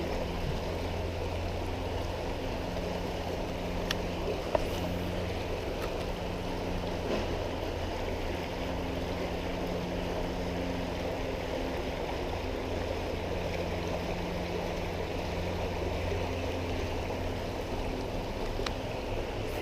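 Creek water rushing steadily, with a steady low hum underneath and a couple of faint clicks about four seconds in.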